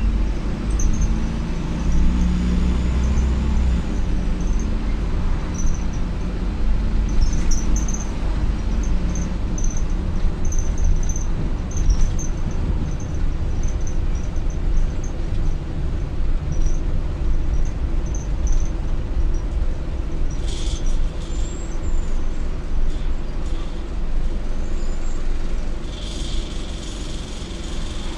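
Optare Solo M950 bus heard from inside the saloon while under way: steady diesel engine and road rumble, with the engine pulling hard for the first few seconds. Small interior rattles click throughout, and there are short hisses of air about two-thirds through and again near the end.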